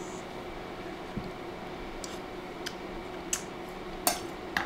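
Steady low hum with a handful of light clicks and taps, small spoon and mouth sounds as the soup is tasted and the spoon is set down, spread through the second half.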